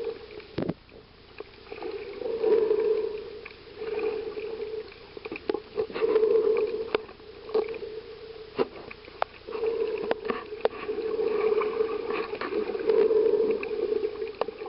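Water gurgling and sloshing as heard through a snorkeler's camera in the water, in surges a second or so long every one to two seconds, with scattered sharp clicks.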